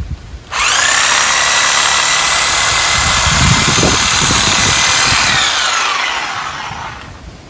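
Yellow cordless power tool working into the roots in the ground. Its motor starts abruptly about half a second in, runs at a steady high whine, then winds down with a falling pitch and fades.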